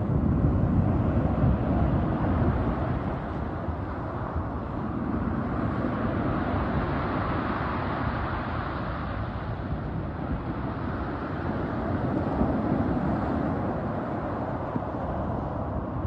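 Rough sea surf breaking and washing up a pebble beach: a continuous roar that swells with each incoming wave, louder at the start, in the middle and again later on, with wind buffeting the microphone.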